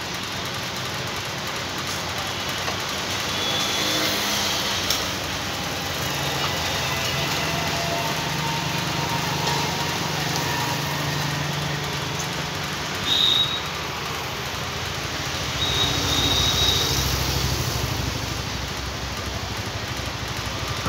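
Steady engine-like drone with a low hum, with a few faint clicks and two brief high-pitched squeaks.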